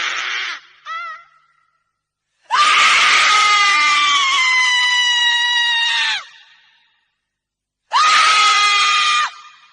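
A woman screaming in separate cries with silent gaps between them. A scream cuts off just after the start and a brief cry follows. Then comes a long scream of about three and a half seconds that sinks slightly in pitch, and a shorter, steady scream near the end.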